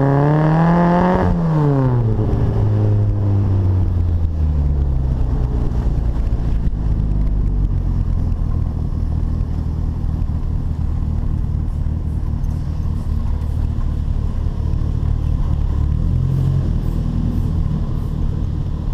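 Bug-eye Austin-Healey Sprite's 1275 four-cylinder engine with a performance exhaust: it revs up to a peak about a second in, the revs fall away over the next few seconds, and it settles into a steady low drone at cruise.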